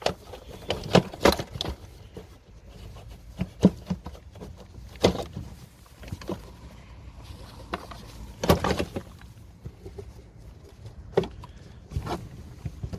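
Irregular knocks and clunks of plastic intake parts being forced loose and handled in a car's engine bay, about half a dozen louder knocks over a low steady rumble.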